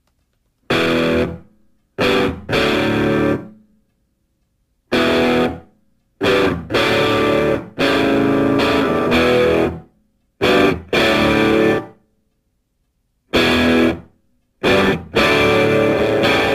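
Distorted electric guitar music played in stop-start phrases. Chords or short runs are struck hard and then cut off or left to fade, with dead silence between phrases; the longest phrase lasts about four seconds.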